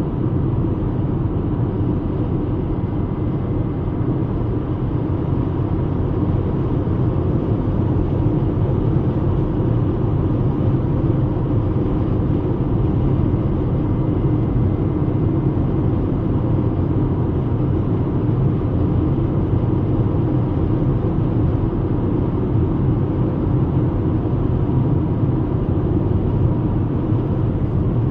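VW Golf Mk5 (75 hp) driving at a steady pace, heard from inside the cabin: a constant low engine and tyre-on-road rumble with a faint steady whine.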